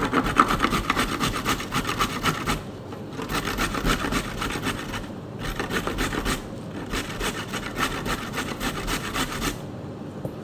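Fresh turmeric root being grated: quick, rapid rasping strokes against a grater in four runs with short pauses between them.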